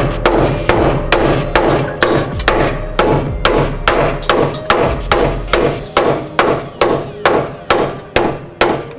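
Steady hammer blows on the steel frame lip of a Honda Civic EK's front wheel well, about two to three strikes a second, each a sharp metal impact with a short ring: the frame is being beaten up to clear the tire.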